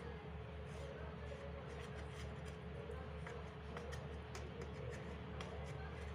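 Short, scratchy strokes of a marker drawn along fabric around the rim of a steel plate, with light ticks as it catches the plate edge, over a steady low hum.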